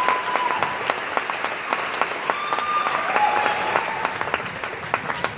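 Audience applauding, dense clapping with a few voices calling out over it, the applause slowly fading toward the end.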